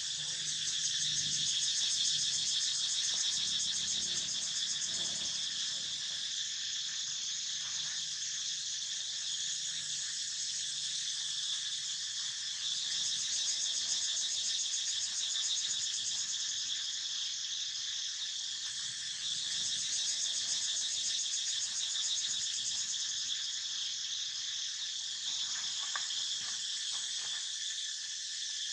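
A dense, steady chorus of insects trilling high-pitched.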